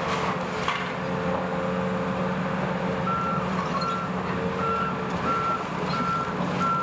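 Volvo EC350E excavator's diesel engine running steadily while it pulls down a building, with debris crashing down in the first second. From about halfway, a backup alarm beeps about six times.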